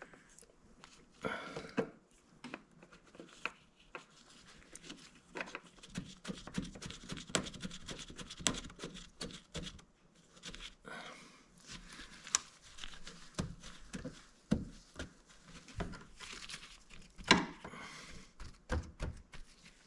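Nitrile-gloved hands and a cloth shop towel rustling and crinkling while working in a motorcycle's side compartment, with many small clicks and knocks from parts being handled. The loudest handling comes about 17 seconds in.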